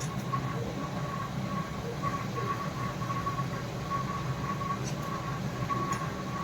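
A steady low hum with a faint high tone that wavers on and off.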